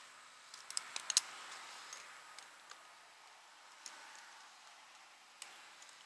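Scattered light clicks and small knocks, a quick cluster about a second in, from a tree climber's carabiner and lanyard gear and gloves moving against the trunk.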